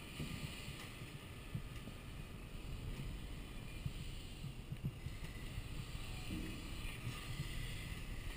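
Fire burning inside a steel flashover training container: a steady low rumble with a few short crackles or knocks, as flames roll across the ceiling.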